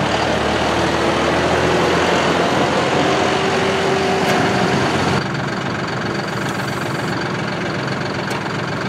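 John Deere 5065E tractor's three-cylinder turbo diesel running as the tractor drives past, with a faint whine rising slightly. About five seconds in the sound drops suddenly to steadier, quieter engine running.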